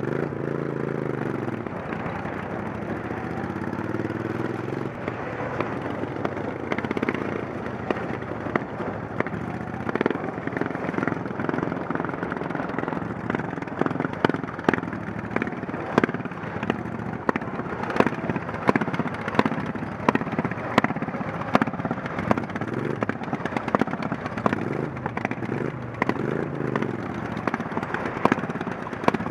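Racing lawn mower engines running hard on a dirt track, the pitch rising and falling as the mowers speed up and slow for the turns. Frequent sharp clicks and knocks sound over the engines.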